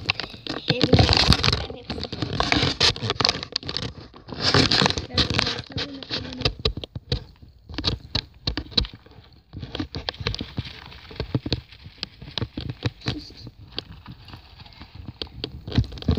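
Close rustling, scratching and dense clicking of wood-pellet bedding and paper in a hamster cage, mixed with handling noise from the phone held right at it; louder patches near the start and again about four seconds in.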